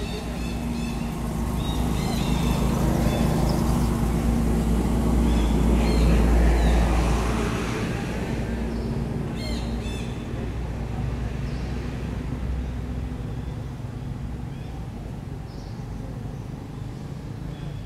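A low, steady engine rumble that grows louder over several seconds, peaks about six seconds in, then slowly fades away, as a passing vehicle does.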